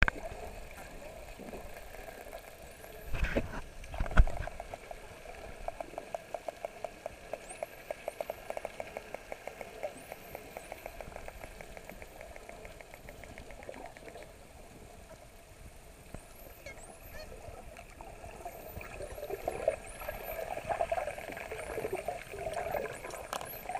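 Dolphins heard underwater: many short high-pitched whistles that glide up and down, and a long run of rapid clicks, over steady water hiss. Two loud low thumps come about three and four seconds in.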